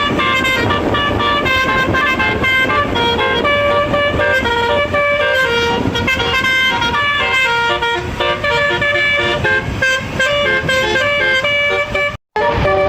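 A bus's six-note telolet air horn playing a quick melody of changing notes over steady road and engine noise. The sound drops out for a moment near the end.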